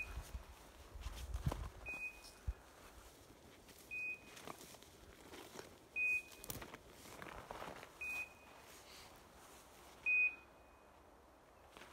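A hunting dog's beeper collar in point mode: a short high beep every two seconds, the signal that the English setter has stopped and is holding a point.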